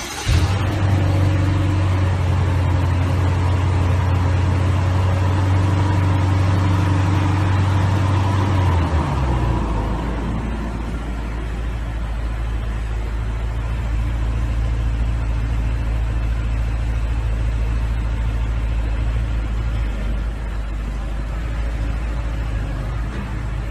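BMW 750i's V8 engine starting up from the display key. It sits at a raised idle, then drops about nine seconds in to a lower, steady idle.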